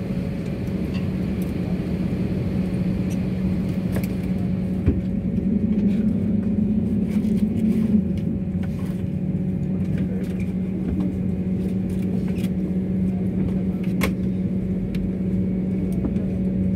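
Airliner cabin noise on the ground: a steady low rumble with a constant hum from the aircraft's engines and air systems, and a few faint clicks.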